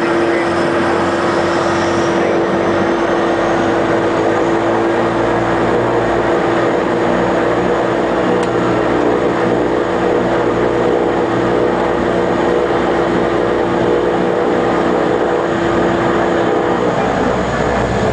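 Twin Otter's Pratt & Whitney Canada PT6A turboprop engines and propellers heard from inside the cabin, running at taxi power as a steady drone. Its strongest tone cuts out shortly before the end.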